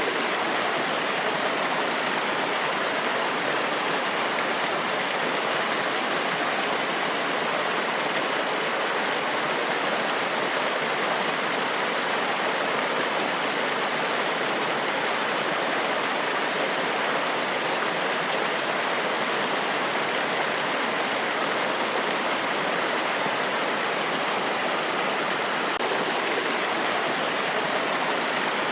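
Small forest waterfall or cascade: water rushing steadily over rocks, an even, unbroken splashing noise.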